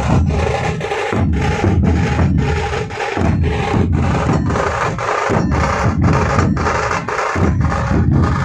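A dhol tasha pathak ensemble playing: many large barrel-shaped dhol drums beaten with sticks in a loud, fast, driving rhythm, with the tasha drums rattling above them. The pattern repeats, the deep dhol beats breaking off for a moment about every two seconds.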